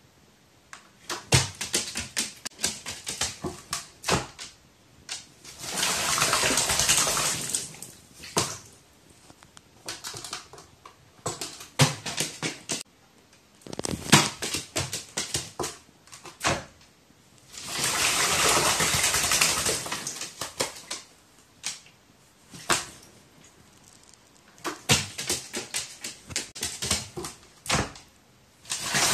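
A crow bathing, splashing water with its wings in repeated bouts: clusters of short splashes and drips, with two longer, denser splashing flurries of a few seconds each, and short quiet pauses between bouts.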